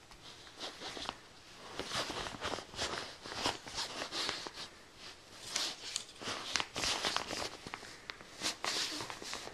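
Irregular rustling and scuffing of fabric and paper as a young baby wiggles and kicks on a towel in a bassinet, in quick uneven bursts.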